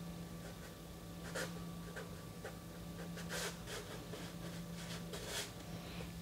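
Fine drawing brush scratching across watercolour paper in a series of short, quick strokes, over a faint steady low hum.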